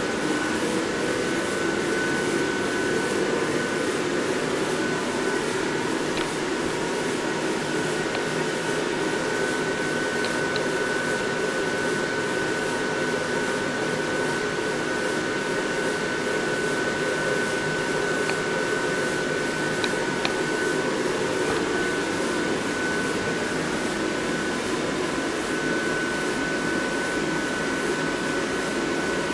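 Electric blower fans inside several inflatable Halloween decorations running steadily, keeping them inflated: an even rush of air with a thin, steady whine above it.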